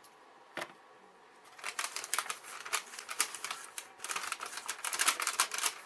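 Two sharp clicks, then a few seconds of quick, dense clicking and rustling from things being handled up close.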